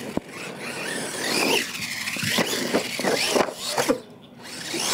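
R/C monster truck's motor whining up and down in pitch as it is driven hard across dirt. Sharp knocks come as it tumbles over a ramp onto its roof, shortly before the end.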